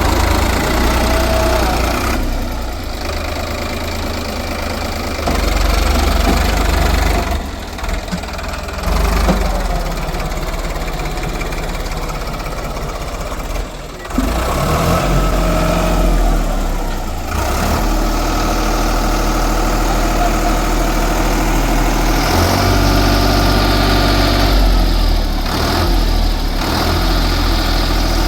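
Backhoe loader's diesel engine running loudly, its pitch and load rising and falling as it works, with brief dips in level about a third and half of the way through.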